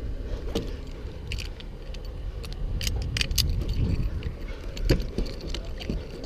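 Metal snap hooks and hardware on a lineman's climbing gear clinking and jangling in scattered sharp clicks as he shifts on a wooden pole, over a steady low rumble.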